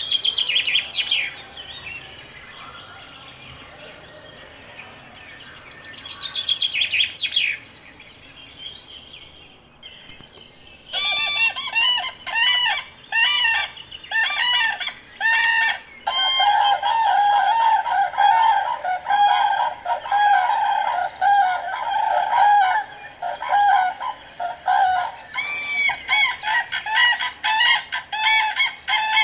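Wild forest birds calling: two quick descending whistled phrases near the start and again about six seconds in, then from about eleven seconds a rapid, continuous run of repeated loud calls from several birds.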